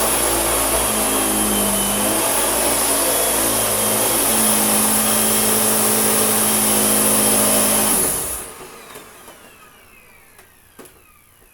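Hoover WindTunnel S3670 bagged canister vacuum running steadily, then switched off about eight seconds in, its motor winding down with a falling whine. A small click near the end.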